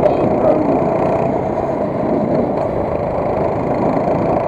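Motovox 5 hp minibike engine running steadily as the bike rides along, mixed with wind noise on the helmet camera's microphone.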